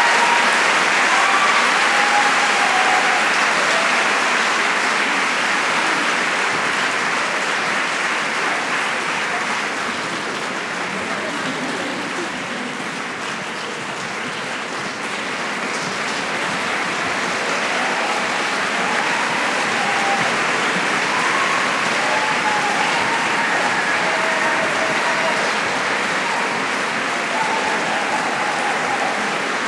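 Large audience applauding steadily, with scattered cheers; the applause eases a little midway and then swells again.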